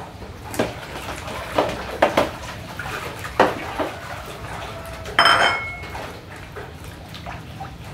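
Fish being washed by hand in a stainless steel basin of water: irregular knocks and clatter against the basin, then one louder metallic clang that rings briefly about five seconds in.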